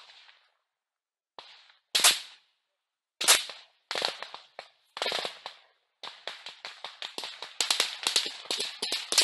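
Small-arms gunfire: single shots spaced out over the first half, the loudest about two and three seconds in, then from about six seconds in a fast run of shots like automatic fire.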